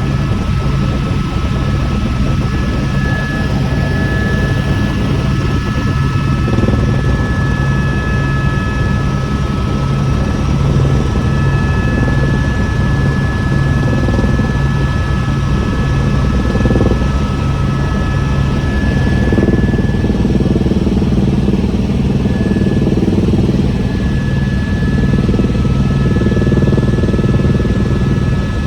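Helicopter running: a steady, pulsing low drone from the rotor, with an even high whine from the turbine above it.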